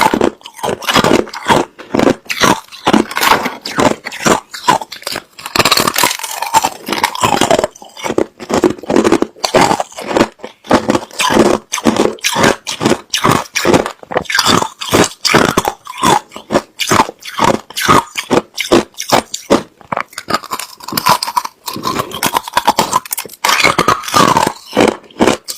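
Hard clear crushed ice being bitten and chewed right at the microphone: a rapid run of loud, sharp crunches, several a second, with a few short breaks.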